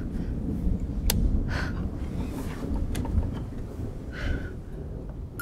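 A person's breaths over a steady low rumble, with two sharp clicks about one and three seconds in.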